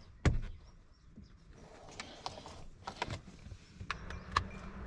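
A thump, then scattered sharp clicks and knocks, with a low steady hum coming in after about a second and a half.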